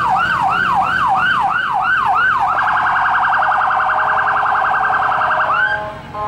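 Fire truck's electronic siren in yelp mode, its pitch sweeping up and down about two to three times a second. About two and a half seconds in it switches to a much faster warble, then ends with one last sweep and cuts off near the end.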